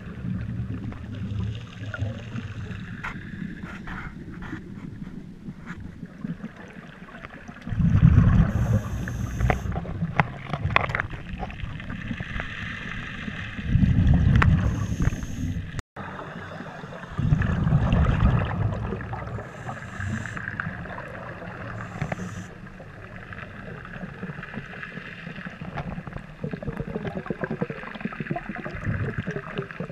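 Scuba regulator breathing heard underwater: steady hiss and gurgle of water, broken by a few loud, rumbling bursts of exhaled bubbles several seconds apart.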